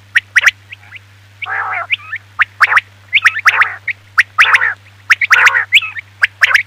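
Quail calling: quick runs of two to four short, sharp, high notes alternating with longer raspy, churring calls, repeated over and over above a steady low hum.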